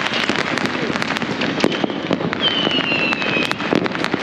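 Many fireworks and firecrackers going off at once, a dense run of bangs and crackles. Midway, a whistling firework glides down in pitch for about a second.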